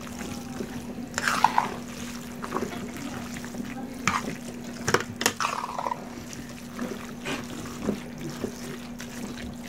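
Spaghetti coated in creamy cream-of-chicken sauce and cheese being stirred and tossed in a large metal pot with a spatula: irregular wet squelches and small clicks. A steady low hum runs underneath.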